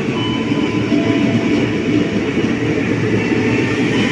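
Electric commuter train (KRL multiple unit) pulling out of the station at low speed, with a steady rumble of wheels on the rails and a few faint thin whines.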